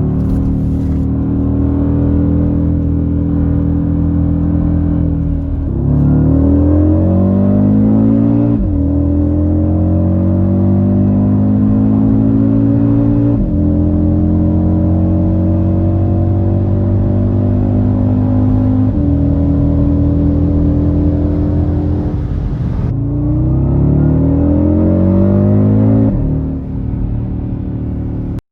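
2020 Audi RS Q3's 2.5 TFSI turbocharged five-cylinder engine pulling hard through the gears: the note climbs in pitch and drops suddenly at each upshift, twice in quick succession after about six seconds, then holds steady before a last rising pull near the end that falls away.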